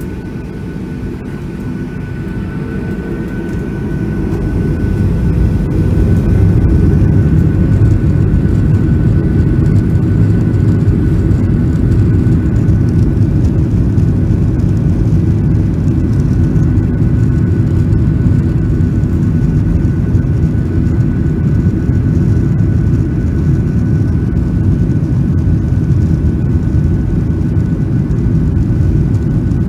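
Boeing 737-800's CFM56-7B jet engines heard from inside the cabin, spooling up over the first few seconds as takeoff thrust is set. They then hold a loud, steady rumble with a thin, steady high whine through the takeoff roll.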